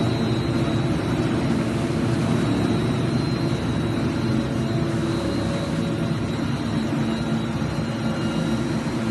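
Plastic recycling extrusion line running: a steady machine drone with a low hum and a faint high whine.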